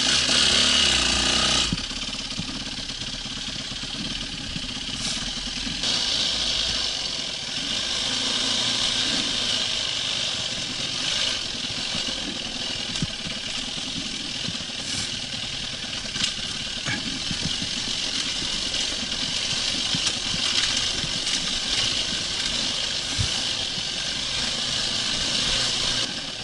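Yamaha WR450 single-cylinder four-stroke dirt bike engine running at low revs as the bike is ridden down a dirt trail. It is louder for the first two seconds, then settles into a steady run.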